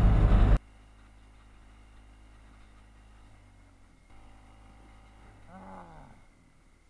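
Truck engine running loudly, heard from inside the cab, cut off abruptly about half a second in; then only a faint low rumble of the moving truck, with a brief faint falling whine near the end.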